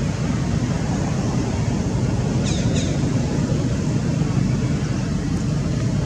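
Steady low outdoor rumble with two short, high-pitched chirps about two and a half seconds in.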